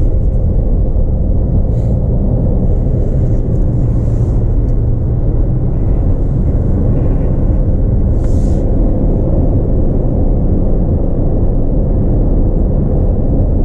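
Steady low rumble of tyres and engine heard from inside a moving car's cabin, with a faint constant hum and a few brief faint hisses.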